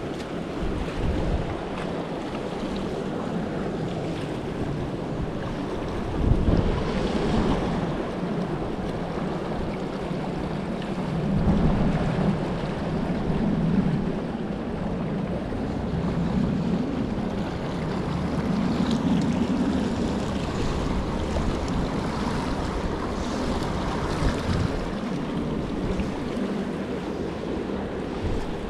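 Shallow mountain creek rushing over rocks in a riffle, a steady rushing noise, with wind buffeting the microphone. There is a brief louder surge about six seconds in.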